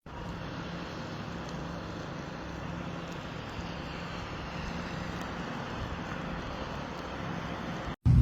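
Steady outdoor noise with a faint low hum underneath, cutting off abruptly near the end.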